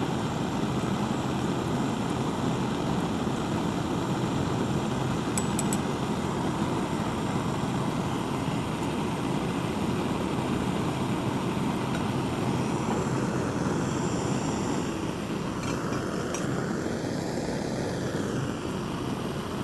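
Bunsen burner flames running with a steady rushing noise, with a couple of faint clinks a few seconds in and again later.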